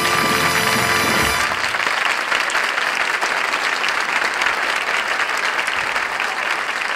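A brass-led band holds the final chord of the number, which cuts off sharply about a second and a half in. A studio audience applauds steadily for the rest.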